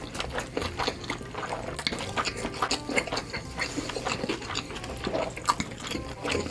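Close-miked wet chewing and lip smacking of a large mouthful of fried cheese ball: many small wet clicks and smacks in quick, irregular succession.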